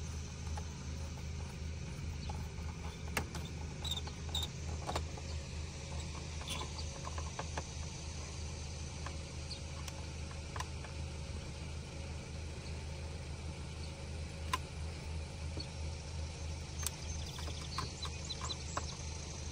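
A screwdriver tightening the screw of a hose clamp on a car's air-intake duct, giving scattered small clicks and scrapes of metal on metal, over a steady low hum.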